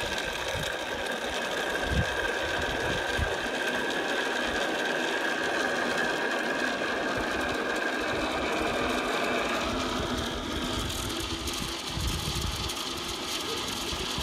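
Zip-line trolley pulleys rolling along the steel cable: a steady mechanical whir that changes about ten seconds in as the rider nears the far end.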